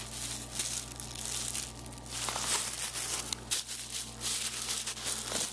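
Thin plastic produce bag crinkling and rustling irregularly as it is handled.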